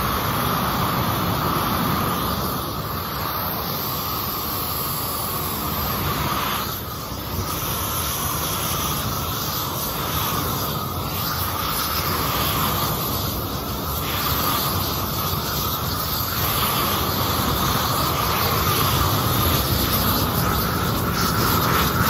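Propane weed-burner torch running with a steady hiss as its flame is swept over wooden boards.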